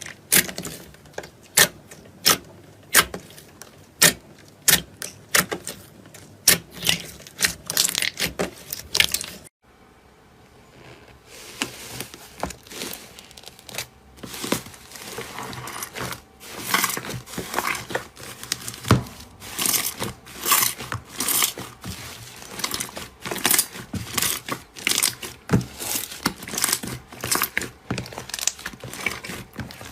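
Slime being squeezed and pressed by hand, giving sharp sticky pops about twice a second. After a short break at about ten seconds, a denser run of crackling and popping follows.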